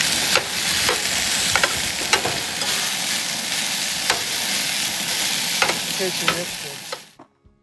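Brown-rice stir fry sizzling in a cast iron skillet while a slotted metal spatula stirs it, clicking and scraping against the pan now and then. The sizzle cuts off suddenly near the end.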